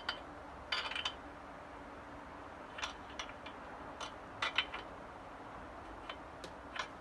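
Faint, irregular metal clicks and clinks of hand tools working the rear axle belt adjuster on a motorcycle, a few sharp taps spaced out by pauses.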